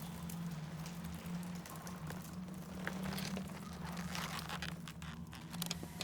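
Film sound-design ambience: a steady low drone with scattered small crunches and crackles over it.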